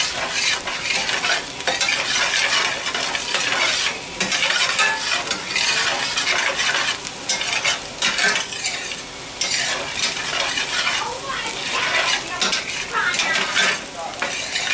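Diced onions sizzling in oil in a stainless steel pan, stirred and scraped around with a spoon in quick, irregular strokes over a steady frying hiss.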